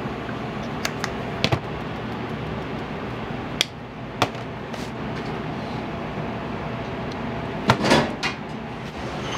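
Kitchen work: scattered knocks and clinks of dishes and utensils, with a short cluster of clatter about eight seconds in, over a steady background hum.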